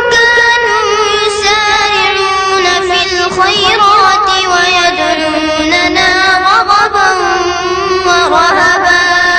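A child's voice reciting the Quran in the melodic tilawah style, drawing out long held notes with wavering, trilled ornaments.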